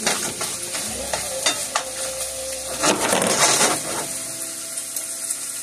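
Ground beef sizzling in a nonstick frying pan, with a silicone spatula scraping and clicking against the pan as the grease is scooped out of the meat. There is a longer, busier run of scraping about halfway through.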